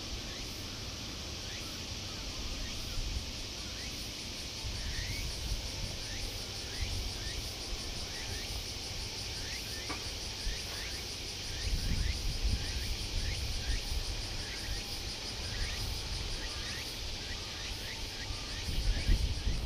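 A dense, steady chorus of buzzing insects, typical of summer cicadas, over a low rumble that swells about twelve seconds in and again near the end.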